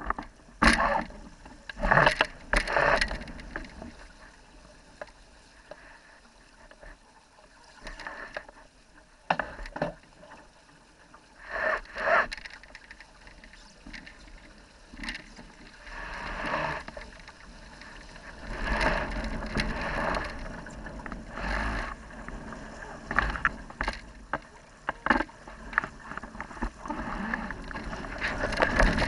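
Water splashing and slapping against the hull of a sailing dinghy under way, in irregular bursts over a steady hiss of water and wind. The noise grows louder and busier near the end.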